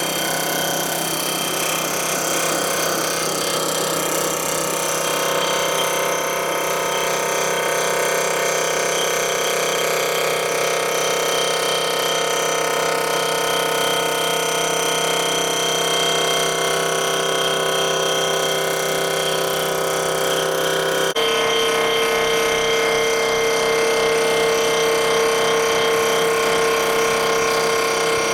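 Surfacing machine's spinning cutter head machining the cast-iron deck of a Ford Model A/B four-cylinder flathead block: a steady, loud mechanical whine made of several held tones. About three quarters of the way through, the tone changes abruptly to a stronger, lower whine.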